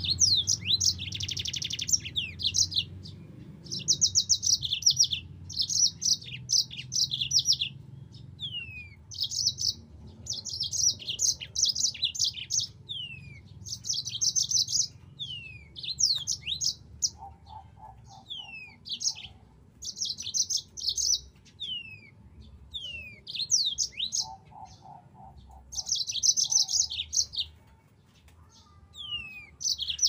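Yellow-fronted canary singing a long, lively song: bursts of rapid high trills broken by many short downward-sliding whistles.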